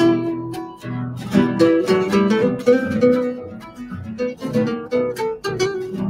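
Acoustic guitar music: a chamamé played with quick plucked notes and strums, several notes a second.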